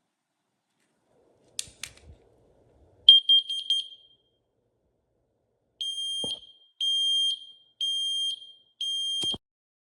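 Combination smoke and carbon monoxide alarm sounding its high-pitched piezo beeper, as when its test button is pressed. A couple of clicks come first, then a quick run of short beeps, then four half-second beeps about a second apart.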